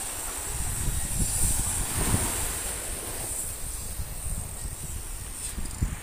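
Small shore waves breaking and washing up the sand at the water's edge, with wind rumbling on the microphone. The surf swells loudest about two seconds in, and there is a short thump near the end.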